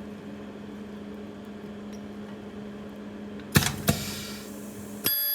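Ultrasonic wire splicing machine: a steady hum, then two sharp clacks about a second apart as the head comes down on the wires. Near the end a loud, steady high-pitched whine starts as the ultrasonic weld begins.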